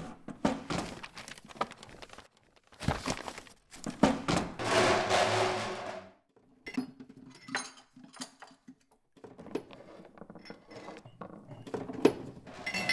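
A scattered series of knocks, clicks and clinks of small hard objects, with a denser rush of noise from about three to six seconds in.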